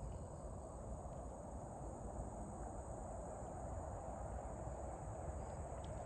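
Crickets trilling steadily: one unbroken high-pitched trill.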